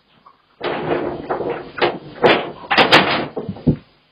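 Clattering and banging that starts about half a second in: a noisy rattle broken by several sharp knocks, stopping shortly before the end.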